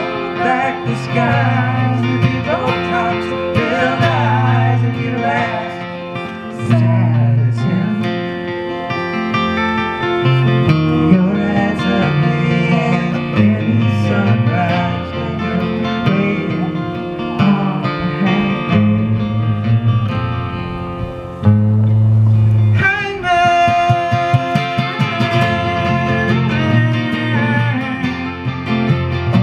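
Live acoustic guitar and electric guitar played together through small amplifiers, with a voice singing over them.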